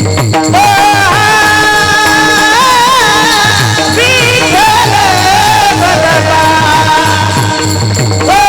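Marathi devotional singing: one voice holding long, ornamented notes that bend and waver in pitch, over a steady drum beat.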